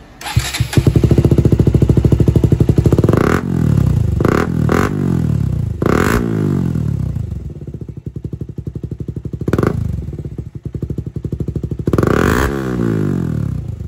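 KTM Duke 125's single-cylinder engine run through a short-can Akrapovič-style aftermarket silencer for a sound check: it comes in just after the start and is blipped about six times, the pitch falling back toward idle after each blip.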